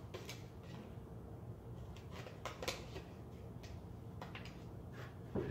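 Scissors snipping into a folded paper plate to cut a hole in its middle: a handful of separate, irregularly spaced snips mixed with paper rustling.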